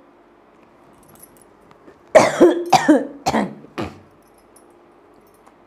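A person coughing four times in quick succession, the coughs getting shorter and weaker.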